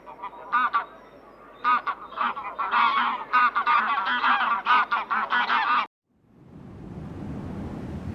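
A flock of farm waterfowl calling in many quick, overlapping honks, which cut off abruptly about six seconds in. A steady low rushing noise then builds up.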